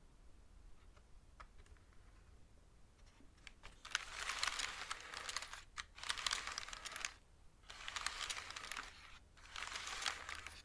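Mechanical keyboard being typed on fast: a few scattered light key taps, then four bursts of rapid clattering keystrokes, each about a second long with short pauses between.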